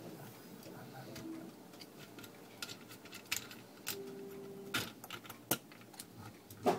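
Scattered light clicks and knocks from a 3D-printed plastic gearbox plate and its attached drive motor being handled and turned over, with a few sharper knocks in the second half.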